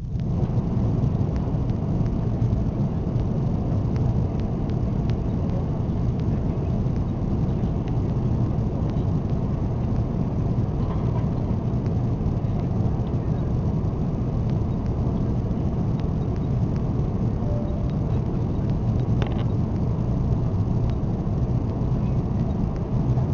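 Steady cabin rumble of an Airbus A340-600 in flight on its descent toward landing: the drone of its four Rolls-Royce Trent 500 engines and rushing airflow, heard from a window seat.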